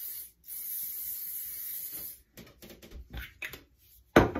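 Aiir aerosol hair shine spray hissing in two bursts: the first stops just after the start, and the second runs about a second and a half. Light rustling follows, then a sharp thump near the end.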